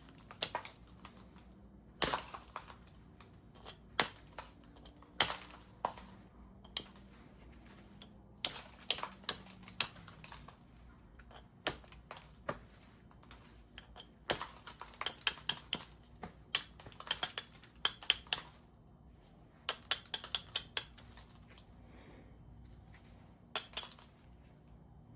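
Flintknapping: sharp, irregular clicks and clinks of stone being worked and flakes snapping off, some single and some in quick clusters.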